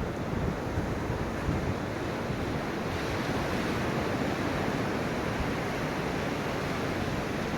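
Ocean waves washing onto a beach, a steady rushing surf with a gentle swell in level partway through.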